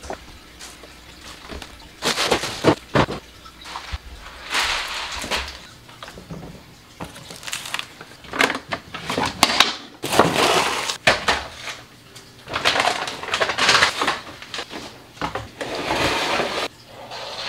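Tidying noises: objects knocked and set down with sharp clacks, and stretches of crackling rustle from cardboard packaging being handled and crushed.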